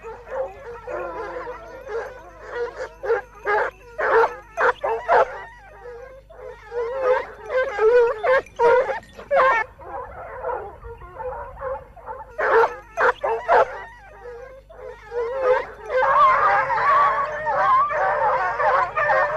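A pack of scent hounds baying in chorus, many overlapping wavering cries, louder and fuller near the end. This is the hunting cry of boar hounds giving tongue on a trail, the 'music' that boar hunters speak of.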